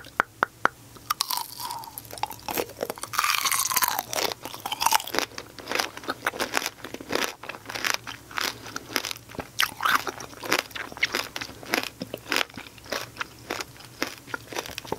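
Close-miked crunching and chewing of shine muscat grape tanghulu: the thin, crisp candied-sugar shell cracks into many sharp crackles as the grapes are bitten and chewed. A quick run of evenly spaced cracks comes right at the start.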